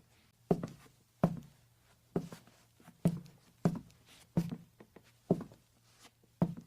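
Footsteps of a person walking on a wooden floor at a steady pace, a little over one step a second, each a low thud.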